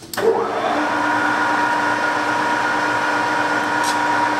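Kingston HJ-1700 geared-head lathe, 7.5 HP drive, spindle started at 650 RPM with an empty chuck. A click, then it spins up to speed within about half a second and runs steadily, with a gear whine over the running noise.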